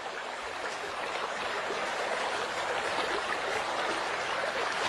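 Steady rushing of a flowing river, growing slightly louder over the few seconds.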